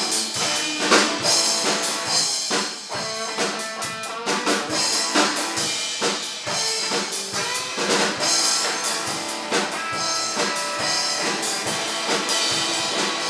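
Rock band playing live: an instrumental passage with no singing, the drum kit to the fore over sustained instrument tones.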